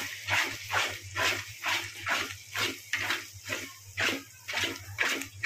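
Metal spatula stirring and scraping garlic paste through sizzling oil in a kadhai, in quick even strokes about two to three a second, over a low steady hum.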